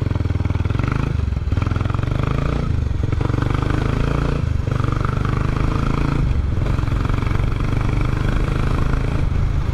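Kawasaki Estrella 250's four-stroke single-cylinder engine and exhaust pulling hard from a standstill, the note rising in each gear and dipping briefly at several upshifts in the first seven seconds, then running on more steadily at cruising speed.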